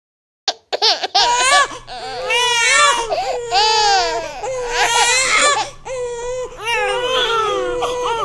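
A baby crying without a break in long cries that rise and fall in pitch, starting about half a second in after a silence.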